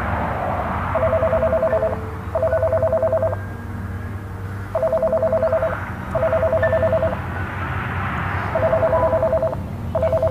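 A payphone ringing in the British double-ring pattern: pairs of pulsing, warbling electronic trills, each about a second long, with the pair repeating about every four seconds, three times.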